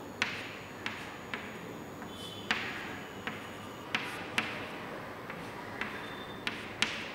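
Chalk tapping and scratching on a chalkboard as small dots and short strokes are drawn: about a dozen sharp taps at irregular spacing, roughly one every half second, several trailing off in a brief scratch.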